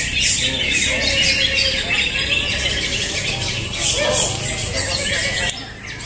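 Many caged green leafbirds (cocak hijau) singing at once, a dense overlapping chorus of fast chirps and whistles, with people's voices beneath.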